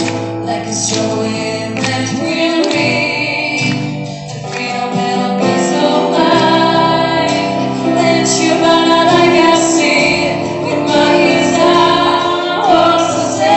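Music: female voices singing a slow rock ballad over instrumental backing.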